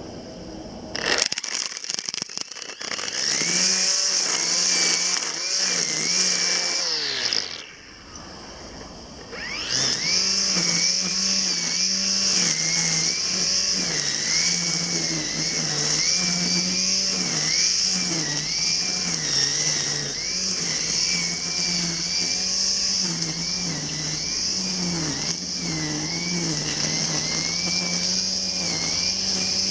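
Brush cutter starting up about a second in and running at speed, easing off for about two seconds, then revving back up and running on, its pitch rising and falling as it cuts grass.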